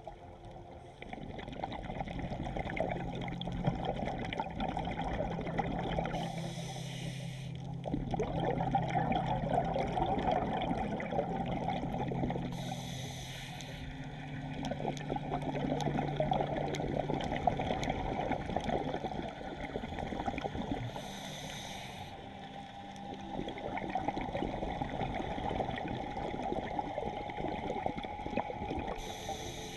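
Scuba regulator breathing heard underwater: a short hiss of inhalation about every seven to eight seconds, each followed by a long crackling rush of exhaled bubbles. A faint low hum runs underneath.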